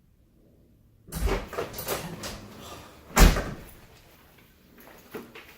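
A run of knocks and bumps starting about a second in, with one loud thump about three seconds in.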